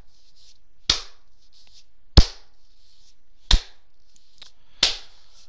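Four sharp impacts, evenly spaced about a second and a third apart, each with a short ring after it.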